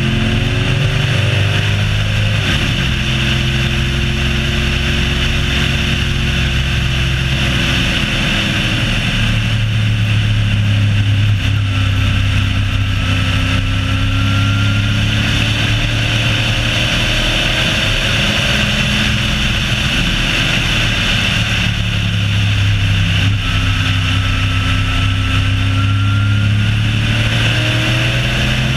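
A car's engine heard from on board at speed during a track lap. Its pitch rises and falls several times as it accelerates and eases off, over a steady rush of wind and road noise.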